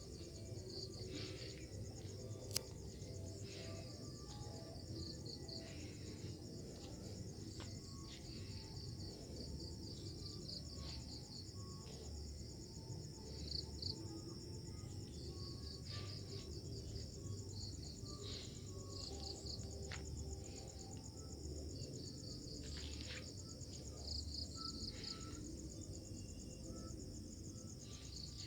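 Night-time chorus of crickets and other insects: a steady high trilling with repeated short chirps over a low rumble, and one sharp click about two and a half seconds in.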